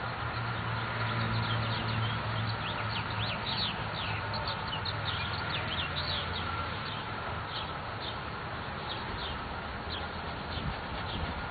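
Small birds chirping, many short falling notes, over a steady outdoor background with a low hum that is strongest in the first few seconds.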